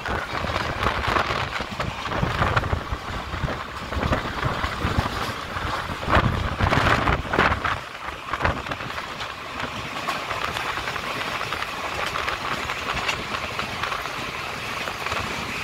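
Train running along the track: a continuous rumbling, rushing noise with clattering of the wheels over rail joints, louder for a few seconds in the middle.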